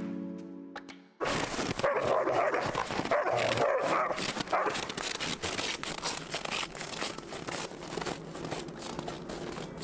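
Background music cuts off about a second in. Then a dog barks in a string of loud bursts, over a dense crackle of clicks that runs on to the end.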